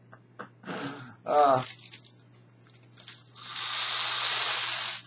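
A long inhalation of vapor from a Volcano vaporizer balloon bag through its mouthpiece: a steady airy hiss lasting about a second and a half near the end. A short breathy vocal sound comes about a second in.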